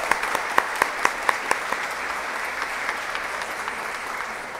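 Audience applauding: a dense patter of hand claps with some sharper single claps, growing sparser and fading toward the end.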